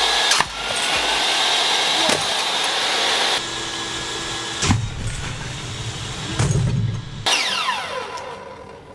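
Table saw running with a steady high whine, with a sharp crack about half a second in as the spinning blade flings a sodium-filled dowel. About five seconds in comes a sharp hit with low rumbling after it, as the dowel strikes the glass aquarium and the sodium blows up in the water. Near the end the saw's whine falls away as the blade spins down.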